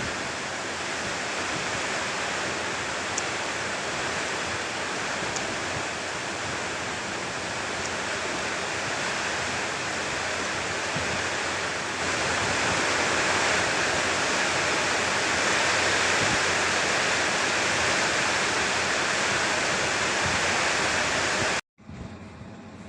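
A steady, even rushing noise with no tone in it, a little louder about halfway through, which cuts off abruptly near the end.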